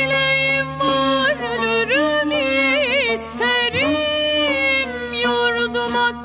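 Solo female voice singing a slow Turkish art-song melody, holding long notes and adding wavering melismatic ornaments, over sustained low cello notes.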